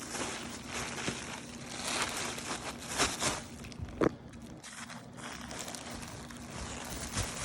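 Plastic packing wrap crinkling and rustling as it is handled and pulled away, with scattered crackles and one sharp crack about four seconds in.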